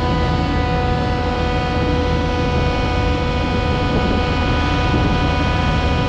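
Self-propelled forage harvester chopping maize, running steadily: an engine drone under a constant whine of several steady tones.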